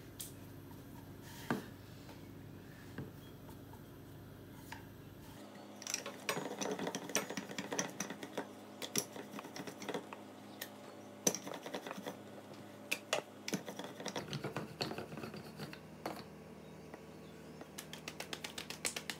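Wooden rolling pin knocking and rolling on a round board as chapati dough is rolled out thin, in scattered clicks and taps. Near the end, a quick, even run of soft pats as the rolled chapati is slapped back and forth between the palms.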